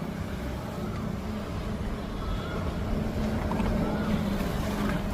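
Tata Intra pickup truck running, a steady low drone and rumble.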